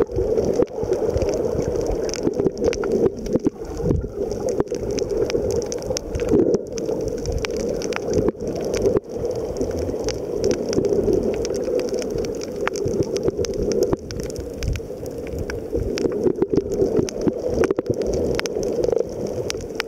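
Muffled sound of water heard through a submerged camera: a steady churning rumble with frequent small clicks and crackles.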